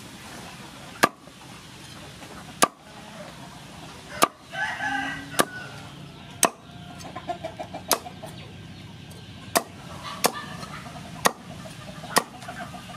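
A knife chopping through crispy pork belly crackling onto a wooden cutting board: about ten sharp crunching chops, one every second or so. A chicken calls in the background near the middle.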